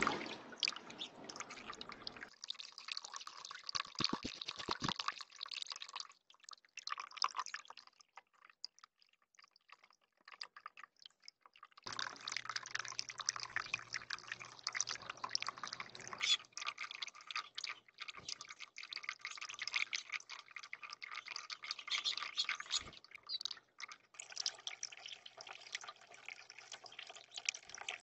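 Water trickling and splashing from a small stone waterfall fountain into a bird bath, heard through a Ring security camera's microphone. It fades out for several seconds in the middle, then comes back louder with a low steady hum underneath.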